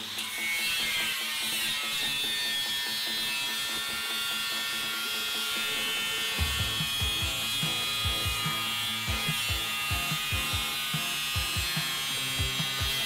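Angle grinder with a cutoff wheel running and cutting into the steel drum of a cement mixer, a steady high whine. Background music with a low beat comes in about six seconds in.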